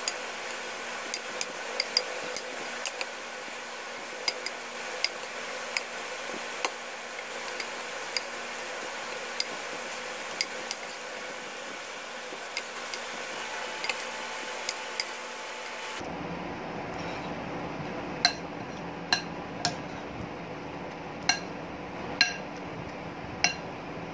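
Metal spoon clinking and scraping against a glass bowl while stirring a wet mix of grated potato and egg: irregular sharp clinks, about one or two a second.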